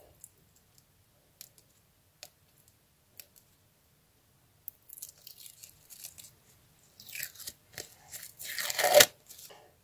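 A handmade tape-laminated paper sticker being peeled off its backing paper by hand, crinkling and crackling. A few faint ticks at first, then a run of scratchy crinkling from about five seconds in, loudest near the end.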